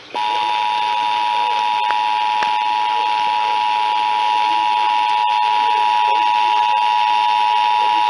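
Emergency Alert System attention signal: a steady two-tone alert broadcast over FM and played through a Midland weather radio's small speaker, announcing a severe thunderstorm warning.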